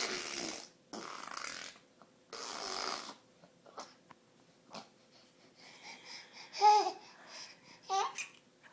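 Baby blowing raspberries with his lips: three spluttering, fart-like bursts in the first three seconds. Near the end come two short baby vocal sounds, the first and loudest about two-thirds of the way in.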